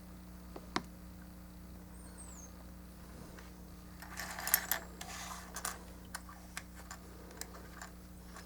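Plastic model kit parts handled on a work surface: scattered sharp clicks, one louder click just under a second in, and a busier patch of clicking clatter about four seconds in.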